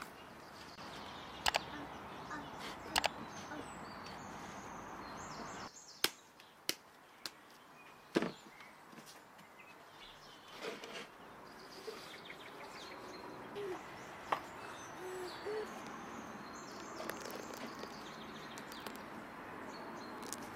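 Hands working flour and dough in a large earthenware bowl and setting plates down on a wooden table: scattered light taps and knocks over a steady outdoor background hiss.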